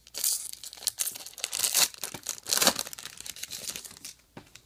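Foil wrapper of a Topps Star Wars Galactic Files trading-card pack being torn open and crinkled by hand: a string of irregular crackles that stops about four seconds in.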